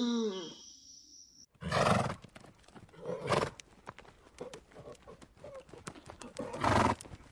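Plains zebras calling: a loud, harsh bark-whinny about two seconds in, a shorter call a little after three seconds, and another loud one near the end, with scattered light hoof clicks in between.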